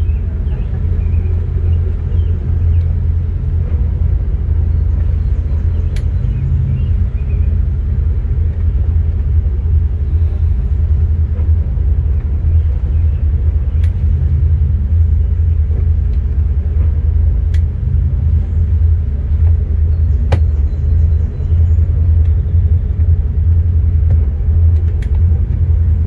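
Steady low rumble of a MerCruiser 7.4-litre inboard engine running while the boat is underway, with a few sharp ticks scattered through it.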